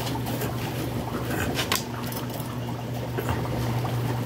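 Aquarium water churning and trickling from the tank's return tube over a steady low hum from the filter. A few sharp clicks come about a second and a half in.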